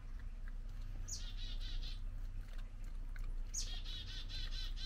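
A small bird singing twice, a couple of seconds apart. Each song is a sharp falling note followed by a quick, trilling run of repeated notes about a second long.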